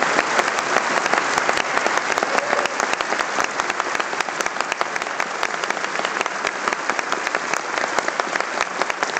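Audience applauding, a dense steady clapping that eases off slightly in loudness.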